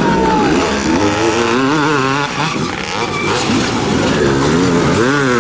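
Classic motocross motorcycle engines revving, their pitch rising and falling repeatedly as the bikes accelerate and shift.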